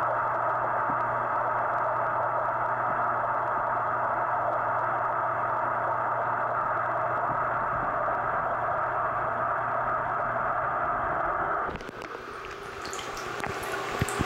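Bath water heard through a camera held underwater: a steady, muffled hiss with a low hum. About twelve seconds in the camera comes up out of the water, the hiss drops away, and small drips and splashes follow, the sharpest near the end.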